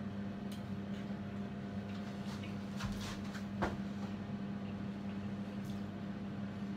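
Fork and plate clicking lightly a few times while eating, with one sharper knock about three and a half seconds in, over a steady low hum.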